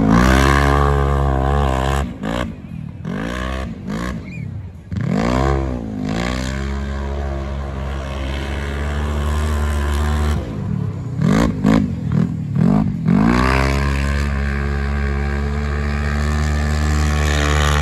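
Side-by-side UTV engine revving hard on a dirt track. The revs swoop up and down several times, then hold steady at high revs for a few seconds, and this happens twice.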